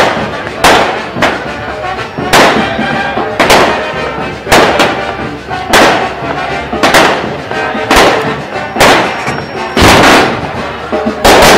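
Aerial firework shells bursting in a steady barrage, one sharp bang about every second, each with a brief crackling tail.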